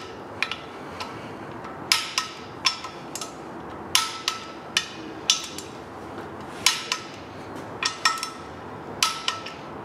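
Click-type torque wrench and socket tightening the flexplate bolts of a 5.3 L LS V8 to 37 foot-pounds: sharp metallic clicks at uneven spacing, one or two a second, some in quick pairs and some with a short metallic ring.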